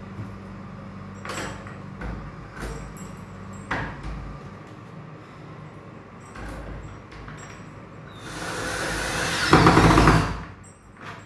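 Light clicks and knocks of lock hardware being handled, then a cordless drill runs for about two seconds near the end, driving into the door handle lock's fitting, and stops abruptly.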